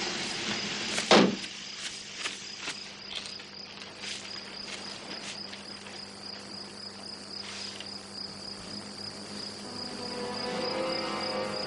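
Crickets chirring steadily in a continuous high, pulsing trill. A loud thump about a second in and a few fainter clicks follow, and quiet music comes in near the end.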